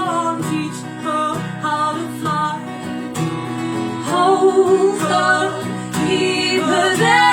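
Acoustic song: strummed acoustic guitar with singing.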